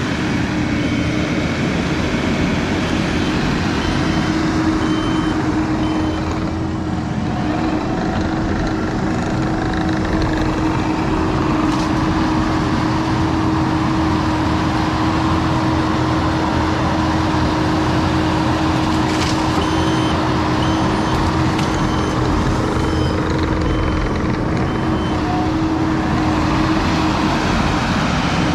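Skid steer's engine running steadily at working revs, with the machine's backup alarm beeping in two spells: in the first few seconds and again for several seconds after the middle.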